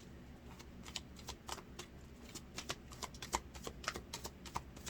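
Tarot cards being shuffled and handled: an irregular run of quick papery clicks and flicks, sparse at first and busier from about two seconds in.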